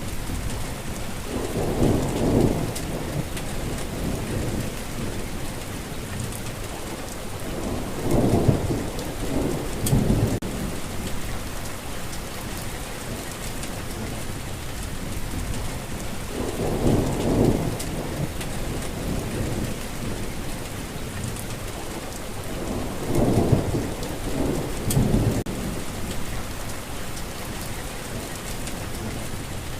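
Steady rain, with low rumbles of thunder rolling in four times, each lasting a second or two.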